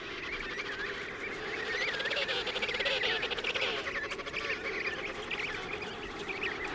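Emperor penguin chicks in a crèche huddle calling together: a chorus of many short, wavering whistles overlapping, loudest about two to four seconds in.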